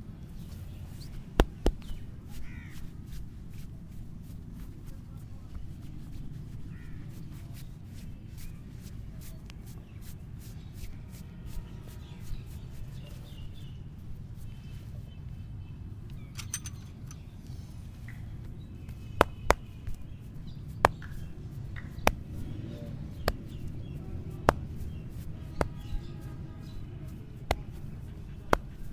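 Sharp hand slaps and claps of a head and neck massage, a quick pair about a second and a half in and then roughly one a second through the latter half, over a steady low rumble. Birds call faintly in the background.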